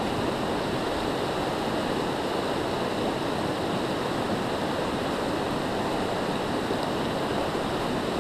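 Steady rushing of a mountain creek's cascading water, an even noise that holds without change.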